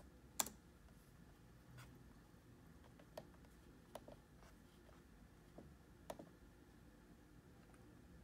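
Faint room tone with a few scattered, isolated clicks of laptop keys and clicks, the sharpest about half a second in.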